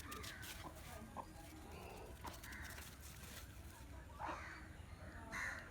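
Short, harsh bird calls, several spaced a second or so apart, over low background noise.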